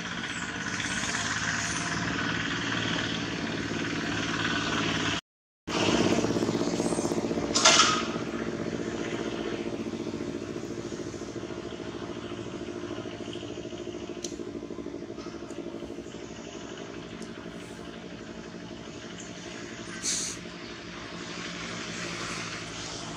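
A steady engine hum that runs throughout, with the sound cutting out briefly about five seconds in. Two short high-pitched sounds come through, one about eight seconds in and one near twenty seconds.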